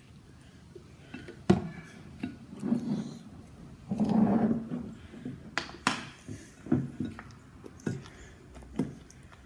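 Scattered sharp clicks and knocks with soft handling noise, and a brief low murmur of voice about four seconds in.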